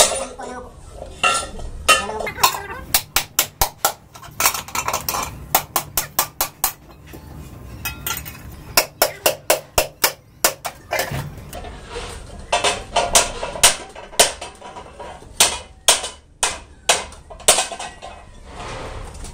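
Quick runs of sharp metallic knocks and clinks, several a second, broken by short pauses: hand tools striking metal in foundry moulding work.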